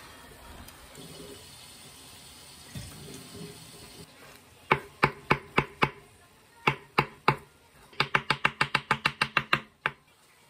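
Chef's knife chopping basil on a wooden cutting board. It makes a few separate cuts from about halfway in, then a quick run of about a dozen chops near the end.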